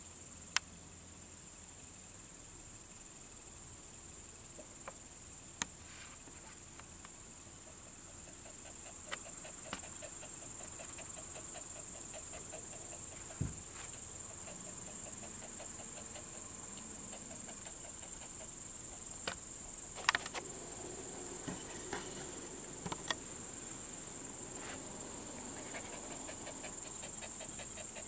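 Crickets chirping in a steady, high-pitched chorus, with a few faint sharp clicks, the loudest about half a second in and about twenty seconds in.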